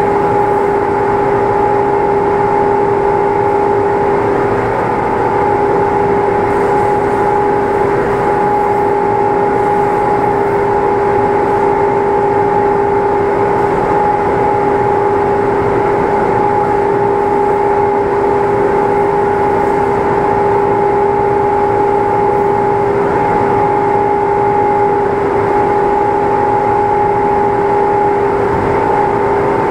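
A machine running steadily at constant speed: a loud hum with two steady tones that hold unchanged throughout.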